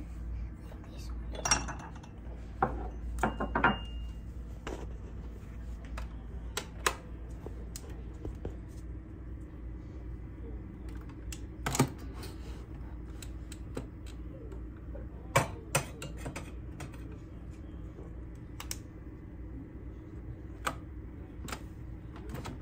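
Scattered clicks and clinks of porcelain cups and a coffee capsule being handled at a capsule espresso machine, about a dozen short sharp knocks spread unevenly, over a faint steady hum.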